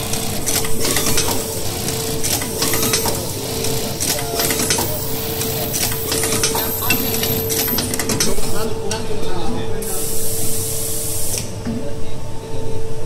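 Juki LK-1903AN electronic button-sewing machine with automatic button feeder and indexer running through its cycle: clattering and clicking of the sewing head and feed mechanisms over a steady hum. About ten seconds in, a hiss lasting a second or so.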